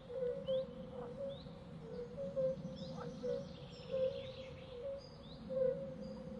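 Forest swamp ambience: a continuous chorus of animal calls, with a steady pulsing drone of low calls under repeated short high chirps and a few rising calls about every two seconds.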